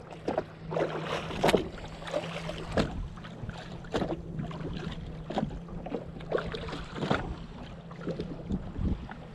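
Small waves slapping and knocking against the hull of a drifting jet ski in irregular splashes, over a steady low hum.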